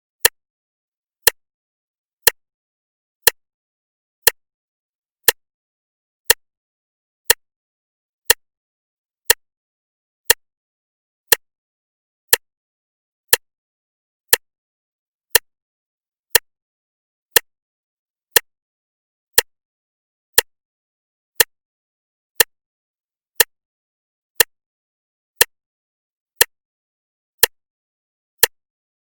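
Clock ticking steadily, one sharp tick a second with silence between the ticks.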